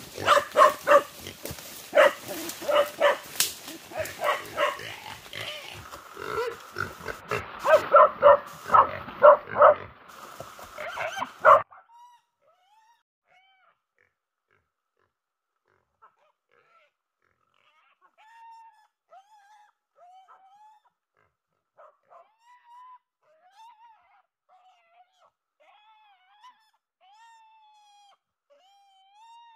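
Pig squealing and grunting in rapid, loud bursts, cutting off abruptly about twelve seconds in. After that only faint short bird chirps are heard.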